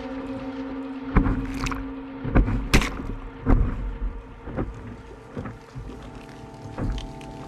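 Sailing dinghy's hull slapping through choppy waves, with the wash of water and spray along the bow and wind on the microphone; about seven sharp thumps as the bow hits waves.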